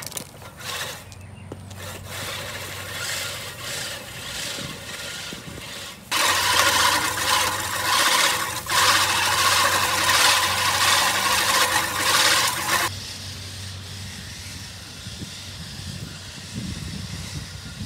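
American Lawn Mower Company 1815-18 push reel mower cutting tall grass: the spinning reel blades make a dry rasping whirr as they shear the grass against the bed knife. It is loud for several seconds in the middle and fainter near the end.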